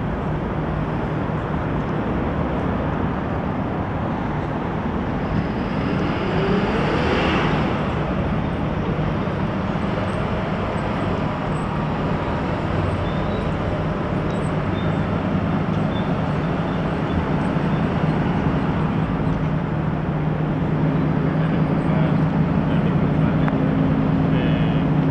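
City road traffic: steady road noise with one vehicle passing about seven seconds in, and a low engine hum that grows louder near the end.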